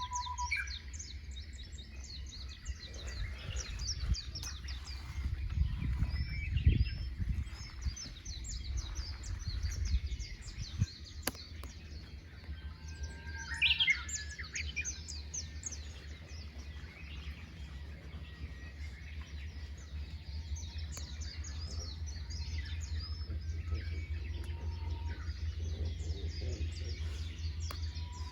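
Many wild birds chirping and singing at once in a steady chorus of short calls, with one louder call about halfway through, over a low rumble that swells in the first third.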